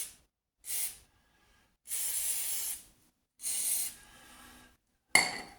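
Aerosol lubricant can sprayed in four short bursts of hiss, one held for about a second, soaking seized suspension bolts. A sharp clack near the end, the loudest sound.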